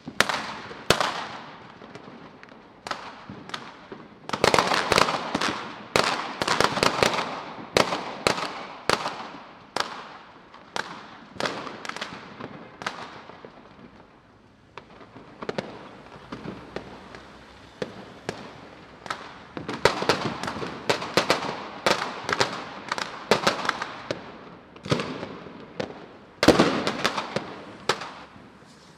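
Battle gunfire sound effect: many sharp shots with echo, coming in irregular volleys. The volleys are thickest about four seconds in and again around twenty seconds, with a lull near the middle.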